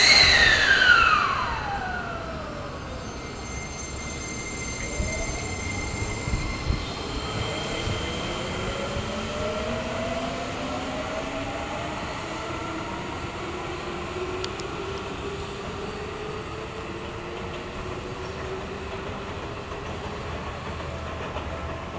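Seibu 20000 series electric train pulling away, the whine of its inverter-driven traction motors climbing slowly in pitch in several tones as it accelerates. At the very start a loud burst with a whine falling steeply in pitch fades out within about two seconds.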